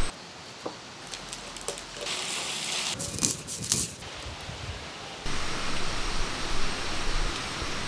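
Outdoor cooking sounds in short cuts: a few light knife clicks, a brief burst of hissing, a run of sharp clicks, then a steady hiss.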